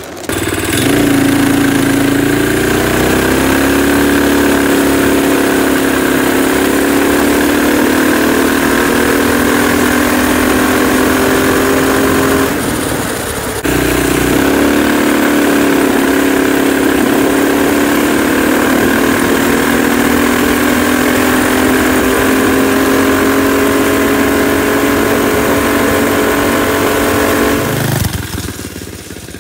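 Stage 2 Predator 212 single-cylinder engine in a small Chinese ATV running steadily at high revs, its pitch slowly climbing. It dips and breaks off briefly about twelve seconds in, then comes back just as loud. It drops away near the end.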